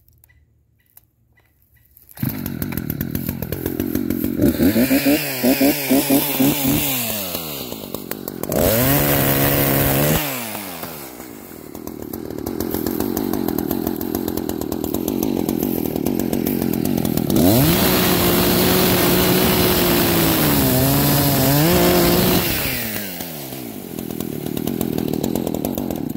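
Echo CS-590 Timberwolf two-stroke chainsaw starting about two seconds in, then revved up and down a few times. Through the middle it cuts into a large tree root, the engine noisier and lower under load, then it runs free at high revs before dropping back toward idle near the end. It is freshly fitted with a new bar and a chain that was flipped to face the right way.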